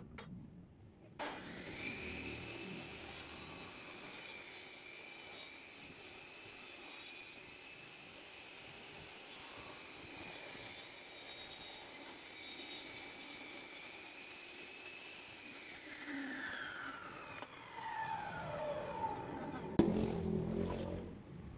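Table saw switched on about a second in, its blade running at speed with a steady high whine while it cuts along a board's edge. Near the end the saw is switched off and spins down, the whine falling in pitch, with a sharp knock just before it stops.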